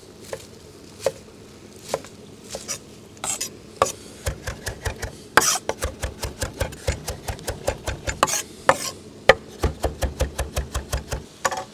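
Chef's knife mincing fresh parsley on a wooden cutting board: a few scattered knocks at first, then from about four seconds in a fast, even run of blade strikes on the board, about four or five a second.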